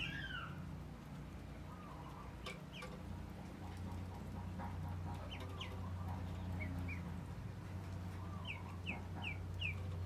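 Domestic chickens clucking, with short high chirps scattered through, over a low steady hum.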